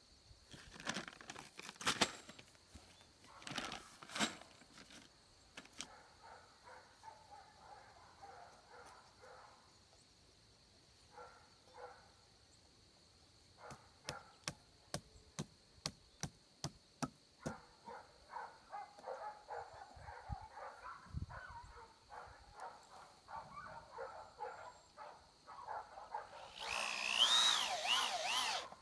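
Corded power drill driving screws through birch slats into birch poles in short runs, with knocks of wood on wood between them. The longest and loudest run, its pitch rising and falling with the trigger, comes near the end.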